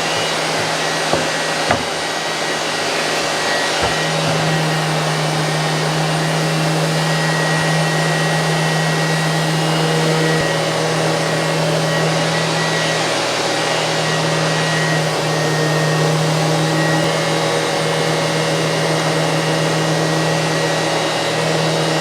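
An electric woodworking power tool running steadily: a constant loud whooshing with a strong low motor hum that barely changes.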